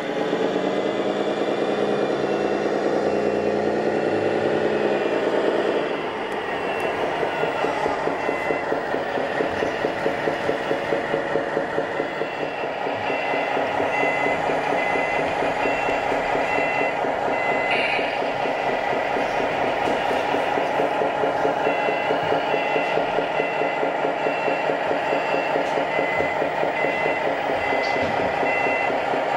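Sound modules of radio-controlled scale trucks playing diesel engine sound through small loudspeakers, a steady engine note giving way to a throbbing rumble about six seconds in. From about eight seconds on, a two-tone reversing beeper sounds in repeated beeps, on and off.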